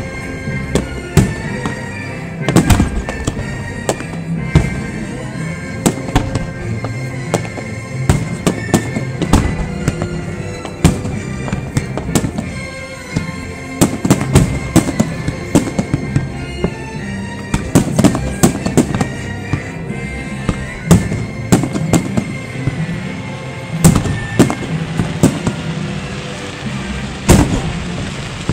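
Aerial fireworks shells bursting in quick, irregular succession, many sharp bangs, some a fraction of a second apart, with music playing throughout.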